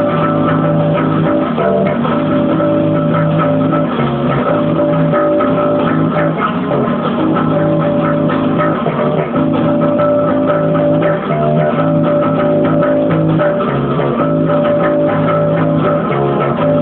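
Electric bass guitar playing a rock song's bass line, steady and continuous, within full rock music with guitar.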